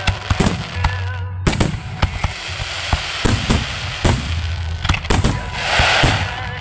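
Fireworks display: aerial shells bursting in a rapid, irregular series of sharp bangs, with a louder hissing, crackling rush near the end.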